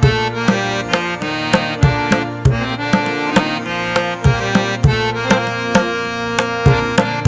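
Slowed, reverb-heavy instrumental ringtone remix: sustained melodic notes over a steady, repeating drum beat.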